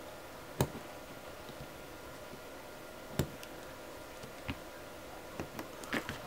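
A few separate light clicks and taps from hands handling small tools and parts on a work mat, with a small cluster near the end, over quiet room tone.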